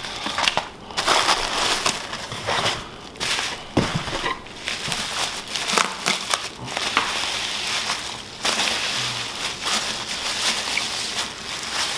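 Plastic bubble wrap crinkling and crackling as hands pull a wrapped tumbler from a shipping box and unwrap it, in irregular rustling bursts.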